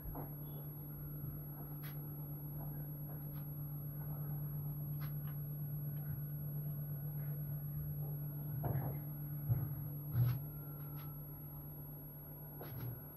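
A steady low hum, with scattered faint clicks and a few soft knocks a little past the middle.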